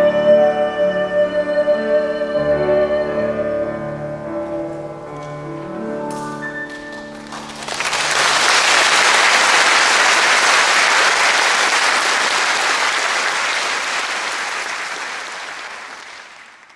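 A soprano holds the final long note of the song over grand piano chords, and the piano rings on briefly after her voice stops. About halfway through, audience applause breaks out and then fades away near the end.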